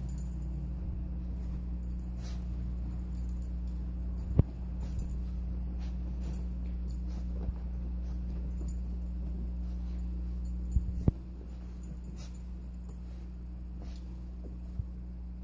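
Small dog scratching and burrowing in a pile of blankets: soft repeated rustling and scratching of fabric with faint jingling, over a steady low hum. A few sharp clicks stand out, the loudest about four seconds in and two more close together near eleven seconds.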